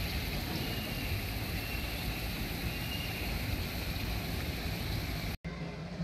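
Steady rush and splash of water falling down an artificial rock waterfall, with a low rumble under it. It cuts off abruptly near the end and gives way to a steady low hum.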